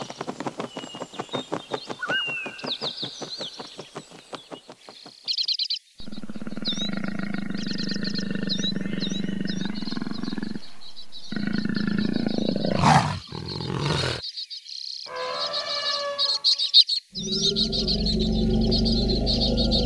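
White storks clattering their bills in a fast, even rattle for the first five seconds or so. After a cut, a leopard calls over high bird chirps. Near the end an African elephant gives low, pitched calls.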